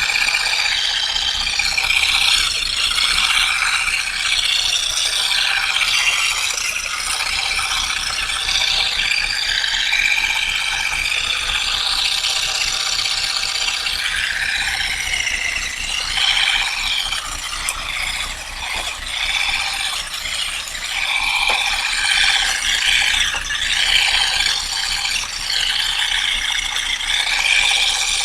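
Continuous mechanical clattering and rattling from olive harvesting work on the tree, wavering in pitch and easing briefly about halfway through.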